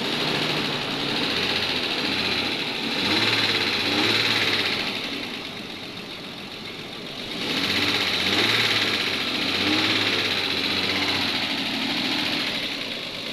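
Nissan Patrol Y61 engine running with an abnormal noise, getting louder twice, about three seconds in and again from about seven and a half seconds.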